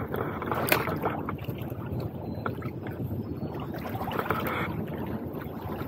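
Wind buffeting the microphone and water washing against shoreline rocks, a steady rumbling hiss. A single sharp knock comes a little under a second in, with a few faint clicks after it.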